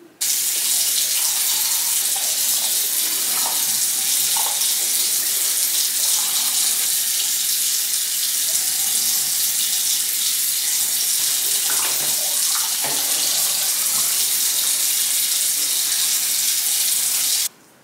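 Bathroom sink tap running in a steady stream, starting abruptly at the outset and cutting off abruptly near the end.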